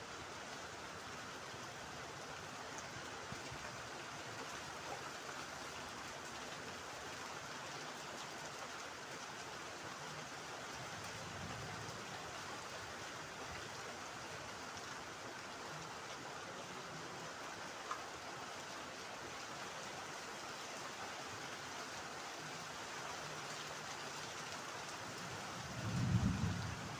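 Steady rain falling, an even hiss with no breaks. Near the end there is a short, louder low sound.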